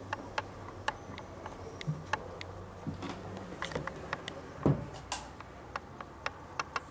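Handling noise from a handheld camera being walked through a tiled hallway: scattered sharp clicks and ticks, with one dull thump a little past halfway. A faint low hum fades out around the middle.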